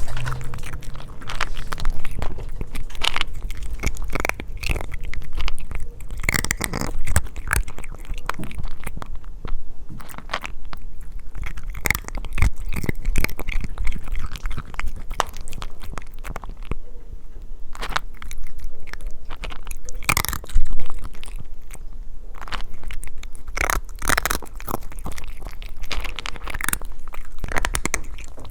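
A cat eating its food close up: irregular crunching and chewing, many quick sharp crunches, a few louder ones along the way.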